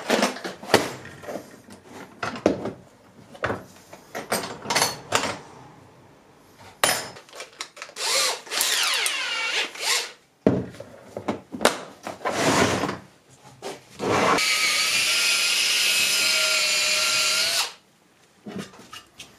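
Clatter of drill bits being handled and fitted to a cordless drill, then the drill triggered in short whirs that spin up and wind down. Then it runs steadily for about three seconds, boring into the old wooden handle stub stuck in an adze eye, and stops abruptly.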